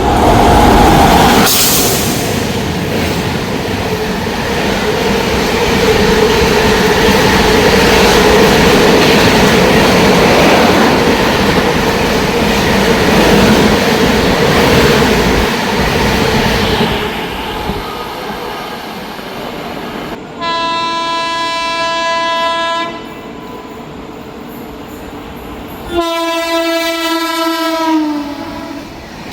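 Train passing through a station: a loud rumble and clatter of wheels on rail that fades after about sixteen seconds. Then a locomotive horn sounds twice, two blasts of two to three seconds each, the second dropping in pitch as it ends.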